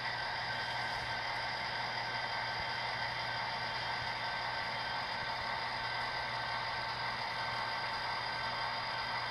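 HO scale model diesel locomotive running slowly and steadily, a constant whir and hum with a faint hiss.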